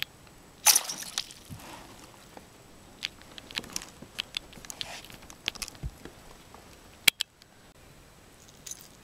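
A hooked northern pike thrashing at the surface beside the boat: a splash about a second in, then scattered sharp clicks and knocks as the fish is handled and landed.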